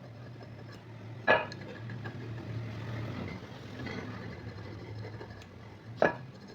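Two sharp knocks, about a second in and near the end, over a low steady hum, with faint rubbing noise between them.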